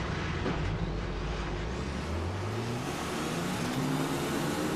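Onboard engine of a GP3 single-seater racing car accelerating, its pitch climbing steeply about a second in and then holding high, over wind and tyre hiss.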